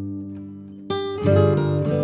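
Background music on acoustic guitar: plucked notes ringing and fading, with a fresh chord struck about a second in.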